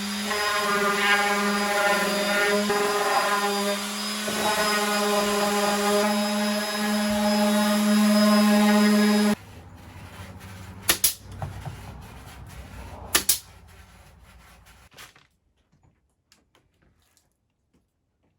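An electric power tool's motor runs steadily at a high hum, then stops abruptly about nine seconds in. Two sharp clicks follow before it goes nearly silent.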